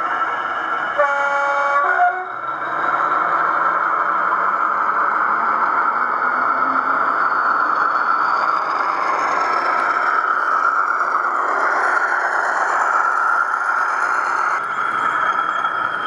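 Loksound DCC sound decoder in an O gauge Class 40 model diesel locomotive: a short horn blast about a second in, then the recorded diesel engine sound running steadily, with tones slowly rising as the model moves along the track.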